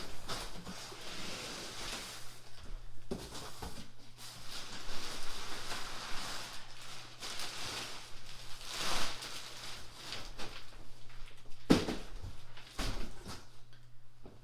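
Cardboard shipping box and packing being handled: rustling and scraping in uneven bursts as a boxed portable massage chair is unpacked, with a couple of sharp knocks about three seconds in and near the end.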